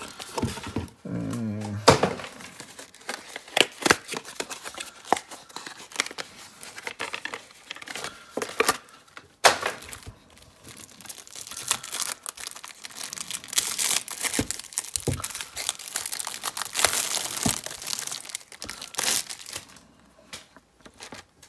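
Plastic wrapping crinkling and tearing as a 3x3x15 puzzle cube is unwrapped by hand: a dense run of irregular crackles and small clicks, busiest in the second half.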